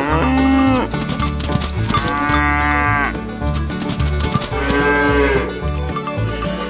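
A cow mooing three times, each moo about a second long, over background music.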